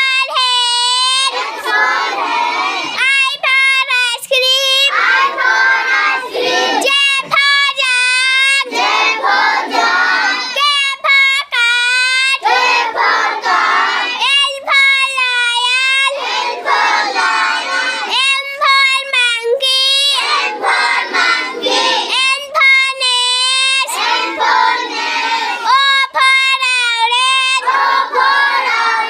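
A child's voice singing an alphabet nursery chant in short phrases, high wavering sung lines alternating every second or two with lower chanted ones.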